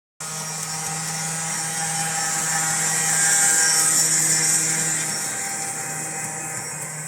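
Vintage scratch-built O scale electric locomotive running on outside third rail: its electric motor and gears whir and its wheels run along the track as it pulls passenger cars. It grows louder to a peak about halfway through and then fades as the train passes by.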